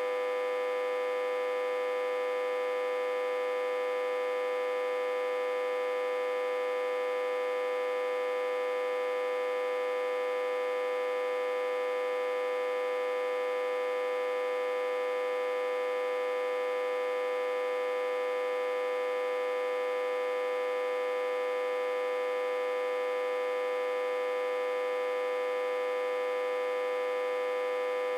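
Autotransformer reverse-connected to a step-down transformer and fed about 60–80 V, humming steadily: one strong mid-pitched tone with many overtones stacked above it, unchanging throughout.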